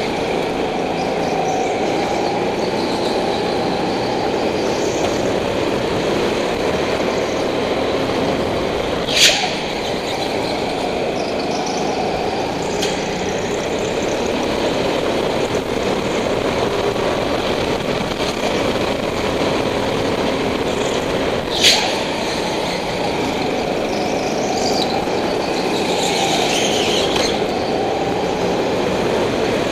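Go-kart at racing speed, heard from the driver's seat: a steady engine note that rises and falls through the corners. Two sharp knocks sound about twelve seconds apart.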